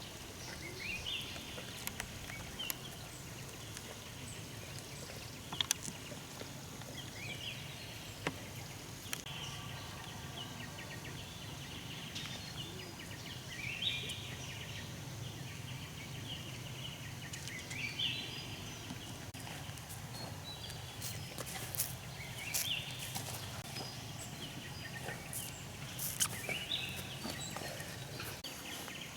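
A bird calling over and over, a short rising call about every four seconds, over a low steady hum, with scattered sharp clicks.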